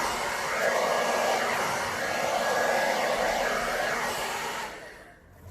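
Small handheld hair dryer blowing air over wet poured acrylic paint on a canvas. Its level wavers as it is moved around, and it is switched off and winds down near the end.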